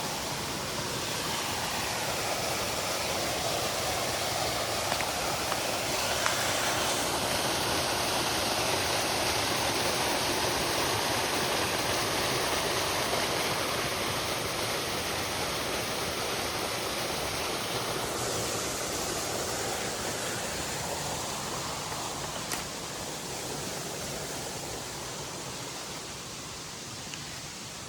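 Small waterfalls in a creek swollen by heavy rain, the water rushing and splashing steadily. The rush swells louder toward the middle and fades near the end.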